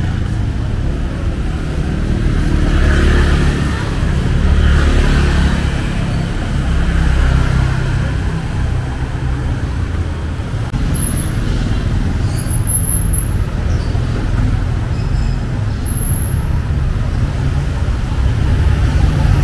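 Street traffic: motor vehicles passing close by on a busy road, with a steady low rumble and several louder swells as vehicles go past in the first half. Voices can be heard in the background.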